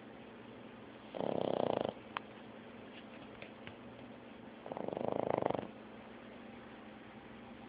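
Boston Terrier snoring in its sleep: two snores, each under a second long, about three and a half seconds apart, with a faint click between them.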